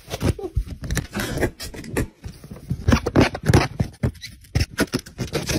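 A dog scratching and pawing at a big inflated ball: quick, irregular scrapes and taps.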